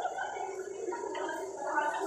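Indistinct, murmured voices of people talking, with no clear words, over a steady high hiss.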